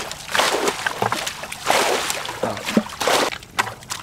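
Shallow muddy water sloshing and splashing, stirred by wading legs and a plastic bucket, in three main splashes about a second apart with small drips and clicks between them.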